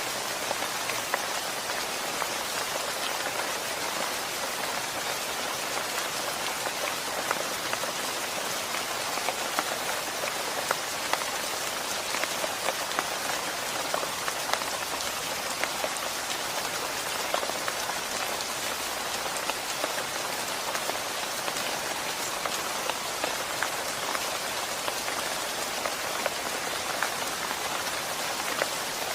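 Steady rain falling, an even hiss with many scattered drop ticks and no thunder.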